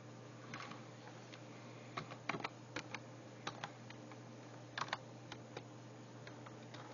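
Computer keyboard being typed on: scattered key clicks in short irregular bursts, over a low steady hum.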